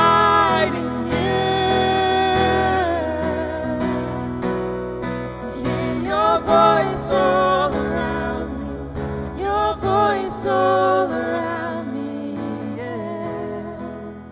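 A woman singing a slow worship song, with vibrato on the held notes, accompanied by acoustic guitar and keyboard; the music grows quieter toward the end.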